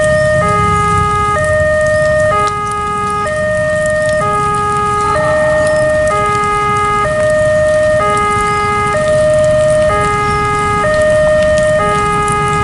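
Railway level-crossing warning alarm sounding as a train approaches: an electronic two-tone signal that swaps between two pitches about once a second, steady and regular, over a low rumble.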